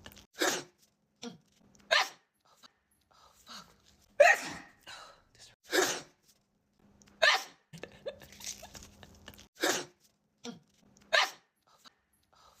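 A woman's sneeze attack: a rapid run of about seven loud, sharp sneezes, one every one and a half to two seconds, with a few softer sniffs or catches of breath between them.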